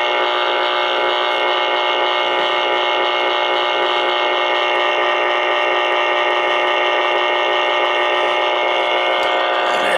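Sonar FS-23 tube CB radio's speaker sounding a steady, unbroken whine of several tones at once, with no voices: a signal or interference covering the channel.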